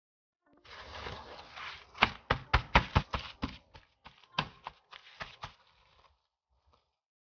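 Paper towel rustling, then hands patting it down onto raw chicken pieces in a stainless steel tray: a quick run of a dozen or so sharp pats, blotting the washed chicken dry.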